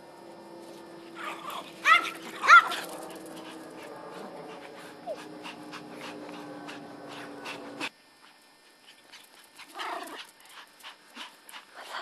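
Small dog giving two sharp yips in quick succession about two seconds in, with a softer yelp near the end. A steady low hum underlies the first part and cuts off suddenly about eight seconds in, and light clicks are scattered throughout.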